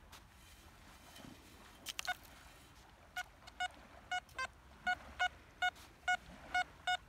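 XP ORX metal detector giving a run of short, identical beeps, about two a second, from about three seconds in, as its coil is swept back and forth over a target in the sand. Before that it is quiet apart from a couple of faint clicks.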